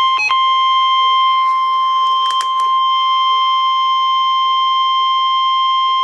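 NOAA weather radio sounding its steady, loud 1050 Hz warning alert tone for a severe thunderstorm warning. Just after the start the tone is broken by a short stepped beep, and a couple of clicks sound about two seconds in.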